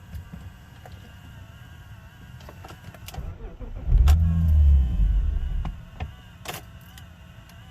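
BMW E39 528i engine idling. About four seconds in there is a click and a louder low rumble lasting under two seconds, then a sharp click.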